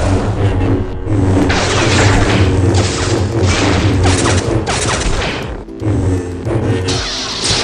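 Lightsaber sound effects: a steady low electric hum with repeated loud swinging whooshes and clash-like crashes, over background music.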